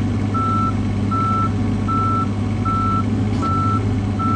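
Travel alarm on a 2008 John Deere 17D mini excavator beeping steadily, about six short single-tone beeps at even spacing, the sign that the machine is moving on its tracks. Underneath is the steady running of its Yanmar three-cylinder diesel.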